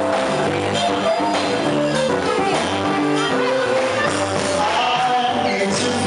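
A Brazilian band playing with singing, bass, guitar and percussion.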